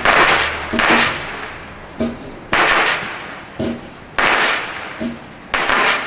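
Standard Fireworks Onslaught cake firing shot after shot: about five loud blasts, each trailing off in a short hiss, with smaller cracks between them.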